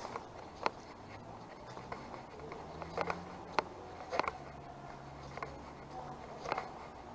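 Footsteps of a walker on a paved footpath, a step about every 0.6 s. A faint low steady hum sits underneath from about a second in.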